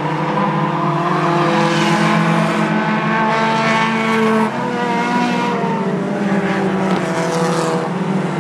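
A pack of four-cylinder short-track race cars running on an oval, several engines heard at once. Their pitches climb through the first half, then change abruptly about halfway as the cars come off the throttle and on again.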